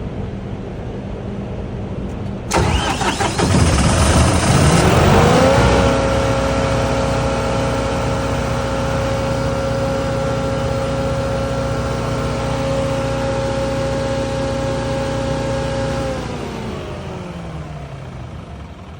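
An engine unit starting up about two and a half seconds in, its speed rising for a few seconds and then running steady. Near the end it slows and winds down with falling pitch as it shuts down. A steady hum runs underneath before the start.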